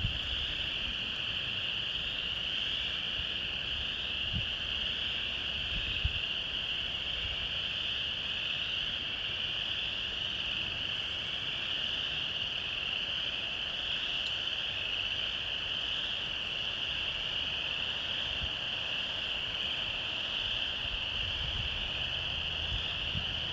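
A loud, unbroken chorus of many calling frogs or insects in the woods, heard as one steady high-pitched drone. A couple of faint low bumps come about four and six seconds in.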